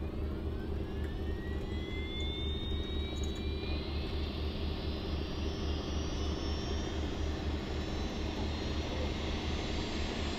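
Aerospatiale AS355 Ecureuil 2/TwinStar helicopter's turbine engines spooling up on the ground, a thin whine rising steadily in pitch over a continuous low pulsing from the turning main rotor.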